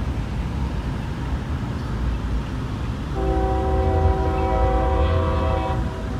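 MBTA train's horn sounding one steady blast of several notes together, about two and a half seconds long, starting about halfway in, over the low rumble of the train.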